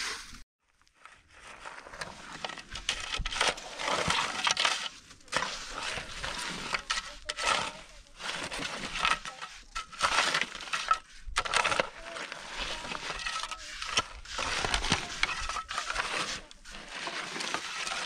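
Steel shovel digging and scraping into dry, stony soil, in repeated gritty strokes about a second apart.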